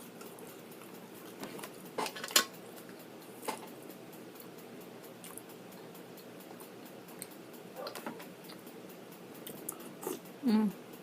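A few sharp clicks and clinks of eating utensils against dishes and takeout containers, the loudest about two and a half seconds in, spaced out over otherwise quiet room tone.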